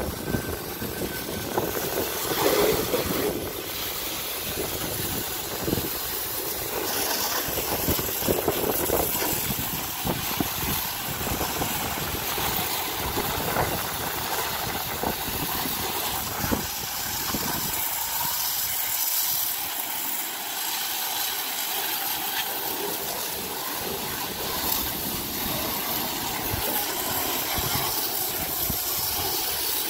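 Water from a garden hose spraying against a car's side panels and windows, a steady hiss as the soap is rinsed off.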